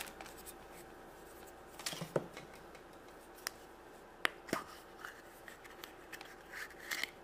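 Small plastic toy capsule from a chocolate surprise egg handled and pried open by hand: faint rubbing with a few sharp clicks.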